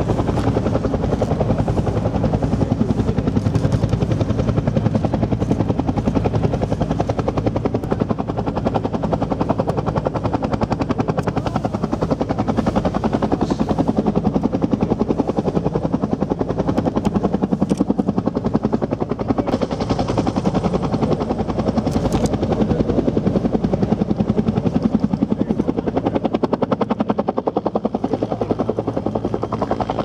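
UH-1 Huey helicopter running on the ground, its two-bladed main rotor and turbine giving a steady, rhythmic blade beat; near the end it lifts off into a low hover.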